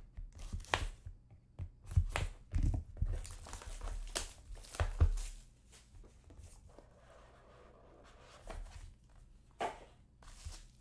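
Trading card box packaging being opened and handled: crinkling and tearing wrapper with sharp knocks and clicks, busy for about five seconds and then dropping to faint rustling, with a couple more knocks near the end.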